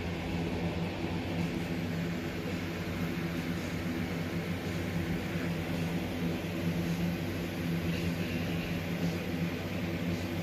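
Heavy wind-driven rain pouring down in a storm, a steady rushing noise heard from indoors through the window glass, with a low steady hum underneath.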